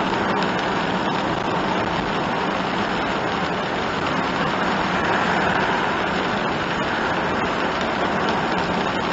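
Steady driving noise inside a kei van's cabin on a rain-soaked road: tyre hiss on the wet surface over engine hum, swelling a little about five seconds in as an oncoming lorry passes.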